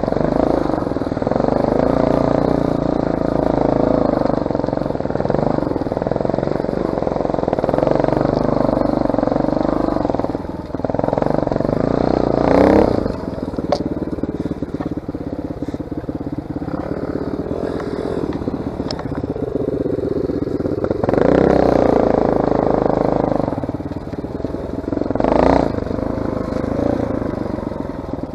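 Motorcycle engine running under way, its pitch rising and falling as the throttle opens and closes, with two sharper revs about halfway through and near the end.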